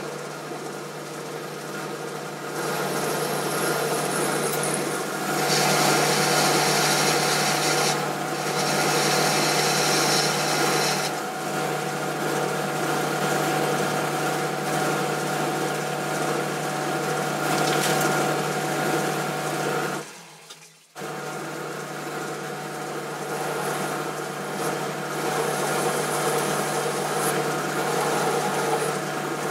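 Boxford metalworking lathe turning a metal bar: the motor and drive run steadily while the tool cuts, adding a hiss of cutting that is loudest from about three to eleven seconds in. The sound cuts out briefly about twenty seconds in, then carries on.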